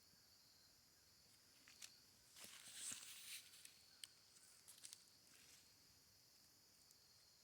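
Faint rustling and crackling footsteps in dry leaf litter, clustered in the first half, over a steady, faint, high chorus of crickets.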